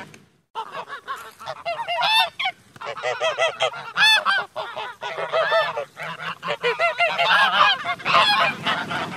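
A flock of domestic geese honking, many short honks overlapping one another, each rising and then falling in pitch. The calls begin about half a second in.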